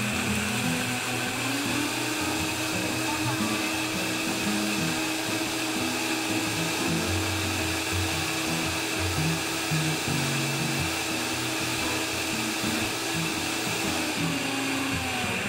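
Vitamix 5300 blender motor running at speed, grinding soaked raw soybeans and water into soy milk slurry: a steady, loud whir.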